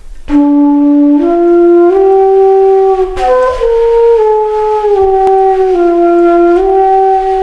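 Background music: a slow melody of long held notes on a single wind instrument, stepping up and down in pitch.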